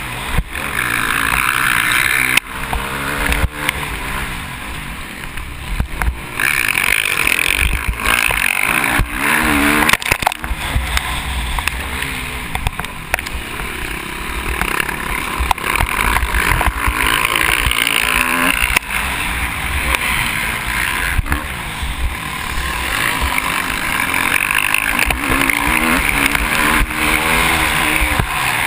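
KTM 350 SX-F's single-cylinder four-stroke engine revving up and down through the gears under race load, heard from the bike's own onboard camera. Wind buffets the microphone, and sharp knocks come now and then from the bike hitting bumps.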